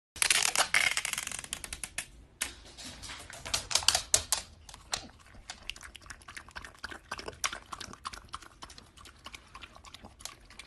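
A rapid, irregular run of small sharp clicks and taps, busiest about a second in and again around four seconds in.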